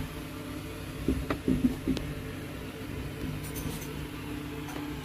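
Steady low mechanical hum, with a few soft knocks and bumps between about one and two seconds in.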